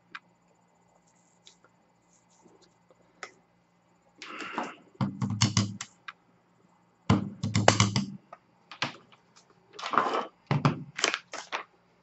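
Krups F203 blade coffee grinder knocked and tapped upside down against paper and a wooden table to empty out fine-ground coffee: several clusters of knocks and rattling in the second half.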